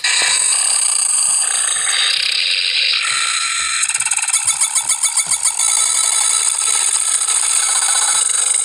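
Loud, harsh, high-pitched sound effects that change every second or so, with a fast pulsing stretch near the middle.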